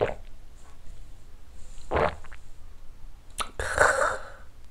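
A man downs a shot of soju and then lets out a sharp, breathy exhale through the mouth, the loudest sound, about three and a half seconds in. A shorter breath comes about two seconds in.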